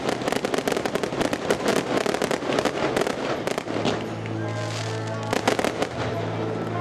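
Fireworks going off in a rapid string of sharp bangs and crackles, densest in the first half and thinning out after about three and a half seconds. Music with held low notes comes in about halfway through and plays under the last scattered reports.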